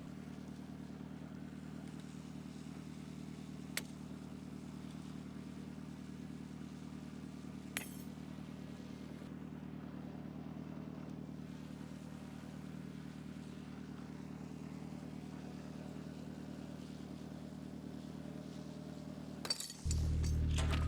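An engine idling steadily, with two faint clicks along the way; near the end a much louder low rumble starts up.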